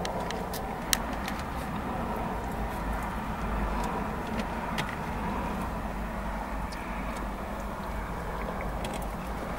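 Steady road and engine noise heard inside a moving car's cabin. There is one sharp click about a second in.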